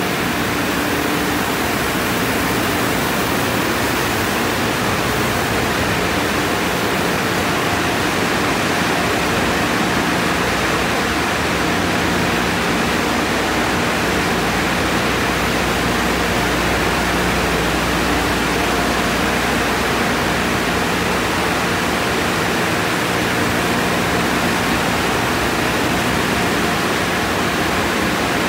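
Tunnel car wash running: a steady rush of water spray with cloth brushes washing over a vehicle, and a faint steady machine hum underneath.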